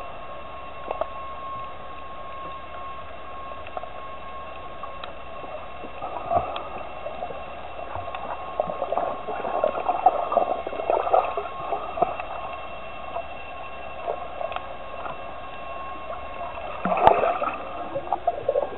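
Underwater bubbling and gurgling that comes in clusters around the middle and again near the end, over a faint steady tone.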